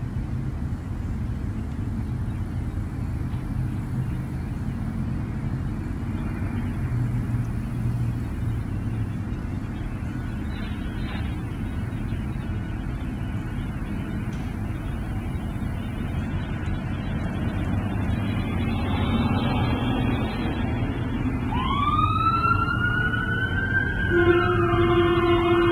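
A steady low rumble; in the last few seconds a siren-like wail glides upward in pitch and is joined by several steady held tones.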